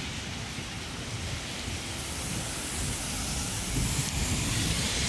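Wet-street ambience: a steady hiss of rain and tyres on the wet road, with wind rumbling on the microphone. The hiss grows louder from about two seconds in.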